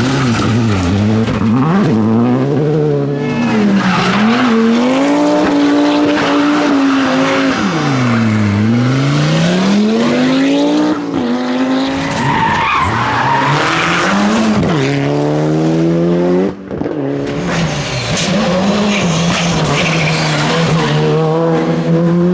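Rally car engines revving hard, the revs repeatedly falling and climbing again through gear changes and throttle lifts, over the noise of tyres sliding on the stage. About sixteen seconds in, a cut switches to another car holding high revs.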